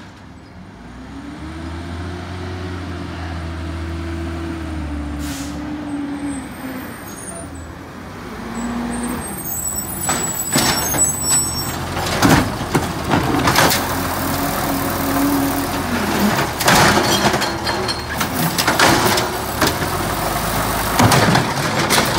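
Natural-gas Mack LEU garbage truck with an Amrep automated side-loader body pulling up, its engine note rising and falling, with an air-brake hiss and a high brake squeal as it stops. Then, for the second half, repeated clattering and banging over the running engine as the automated arm grabs, lifts and dumps the recycling cart.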